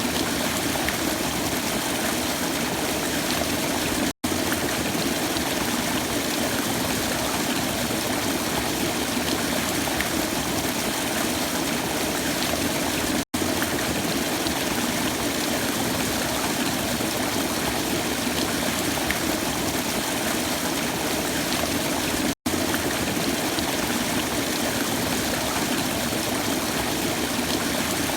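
Waterfall: a steady rush of falling water. It cuts out to silence for an instant three times, about nine seconds apart.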